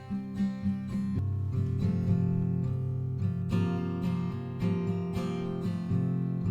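Acoustic guitar strumming chords, with repeated strums and a change of chord every second or two.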